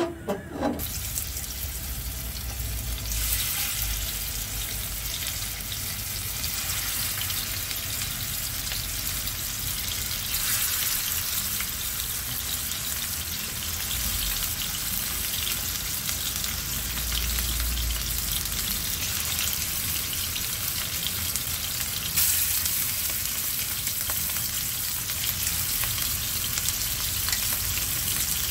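Marinated chicken pieces sizzling in hot oil in a nonstick wok as they pan-fry. The sizzle is steady and grows louder in steps, about 3, 10 and 22 seconds in.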